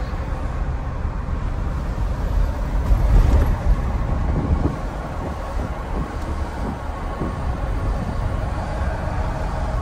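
Road and tyre noise heard inside a moving pickup truck's cabin: a steady low rumble, swelling louder for a moment about three seconds in.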